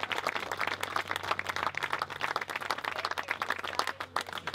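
Small crowd applauding with hand claps, the clapping thinning out near the end.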